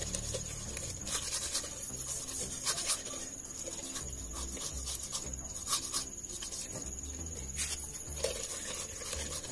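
Hands washing cut pieces of snakehead fish in a bowl of water: irregular soft splashing, with the pieces rubbing and scraping against each other and the bowl. A steady high-pitched tone runs underneath.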